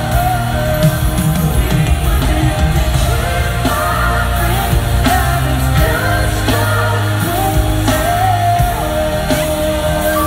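Live pop-rock song: a man singing lead over a band, recorded from the crowd in a large arena.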